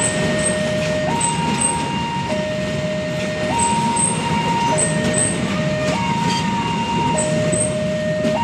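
A railway level-crossing warning alarm sounding a two-tone high-low signal, each tone held about a second, over the rumble and rail noise of passenger coaches rolling past. Short high chirps come in pairs every second or so.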